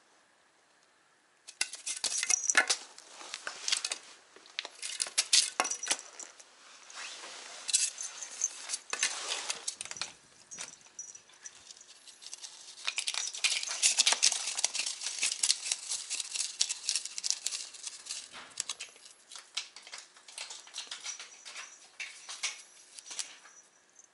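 A cat biting and scraping at a thin piece of styrofoam on concrete: rapid crackling and scraping that starts about a second and a half in and carries on almost without a break, louder in two stretches.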